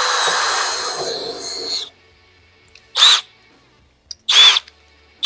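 Power drill running steadily as it drills a pilot hole for mounting a hot rod's grille shell, stopping about two seconds in. It then gives two short blips, about three and four and a half seconds in, and a third at the very end.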